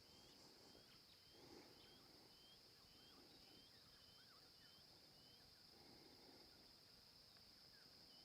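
Faint bush ambience: a steady high insect drone, with a run of short high chirps about twice a second for the first five seconds or so and a few soft bird calls.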